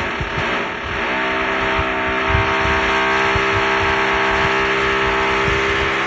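Power tool running in a renovation upstairs, heard through the ceiling: a loud, steady whine over a grinding rush, settling to a steady pitch about a second in.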